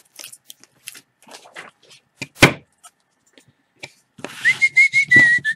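Hands handling a foil-wrapped trading card pack and cards: faint scattered rustles and clicks, with one sharp knock about halfway in. Near the end, a steady high whistled note sounds over a hiss.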